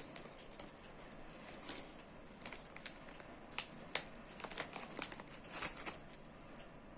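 Scattered crinkling and rustling clicks, thickest in the middle and loudest about four seconds in, thinning out near the end.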